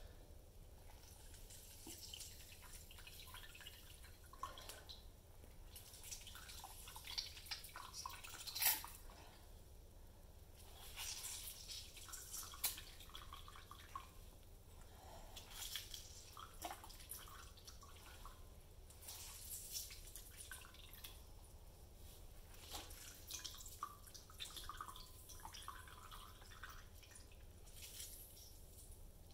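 Orange juice dripping and trickling into a glass as the fruit is squeezed by hand, coming in several spells with a wet crackle from the squeezed peel. One sharp tap stands out about a third of the way in.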